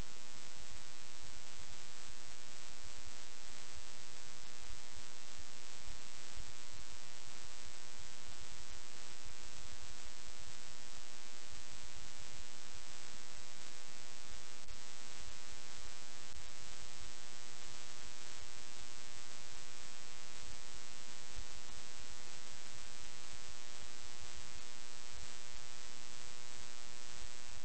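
Steady electrical buzzing hum with hiss, unchanging throughout.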